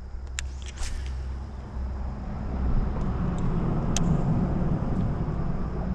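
Road traffic rumbling across a highway bridge, swelling a couple of seconds in and easing off near the end. A few light clicks sound near the start and again about four seconds in.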